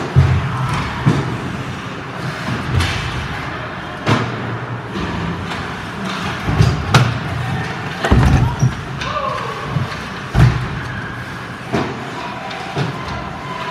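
Ice hockey play close to the net: an irregular string of thuds and knocks from puck, sticks and players hitting the boards, goal and goalie, over steady arena noise. The loudest knocks come near the start and about ten seconds in.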